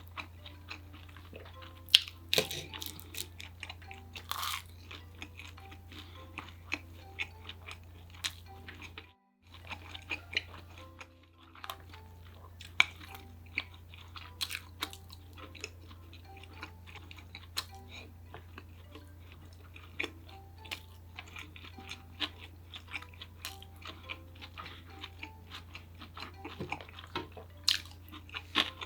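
Close-miked eating sounds: chewing with frequent sharp crunches and bites, over soft background music and a low steady hum. The sound cuts out briefly twice, about nine and eleven seconds in.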